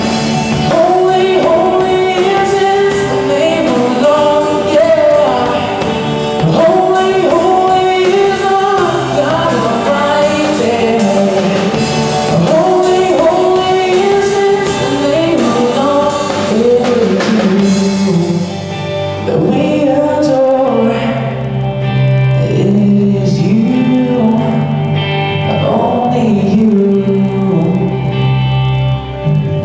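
Live rock band playing a worship song: a male lead singer with electric guitars and drums. The drumming is dense for the first eighteen seconds or so, then thins out, leaving the voice, guitars and a sustained low bass line.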